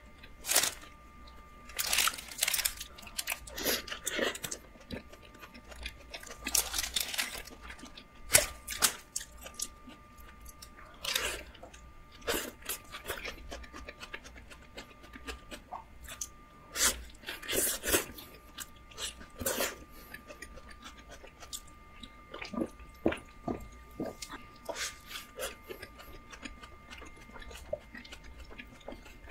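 A person biting into and chewing a Burger King Quattro Cheese burger, the crisp lettuce crunching in irregular bursts between quieter chewing.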